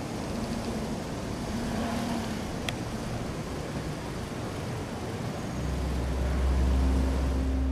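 A car moving slowly, with a steady hiss of road and traffic noise. A single sharp click comes a few seconds in, and a deep low rumble starts past the middle and holds.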